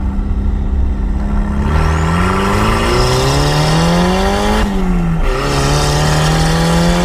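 Turbocharged 1.6-litre Mazda Miata four-cylinder engine under hard acceleration, heard from the open cockpit. It runs steady at first, then the revs climb, drop at an upshift just under five seconds in, and climb again.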